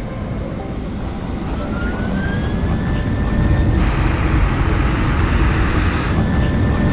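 Twin turboprop airliner's engines going to takeoff power: a low rumble that grows steadily louder, with a whine that rises in pitch and then holds, and a loud rushing roar from about four to six seconds in.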